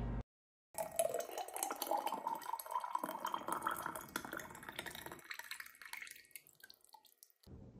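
Sauce poured in a thin stream into a tall glass jar, starting under a second in: splashing liquid with a ringing note that rises in pitch as the jar fills, then fading as the stream thins until it stops near the end.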